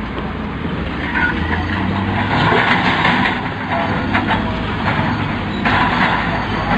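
Loaded six-wheel military dump truck driving slowly over gravel fill, its engine running under a steady rattle and crunch of gravel and rock.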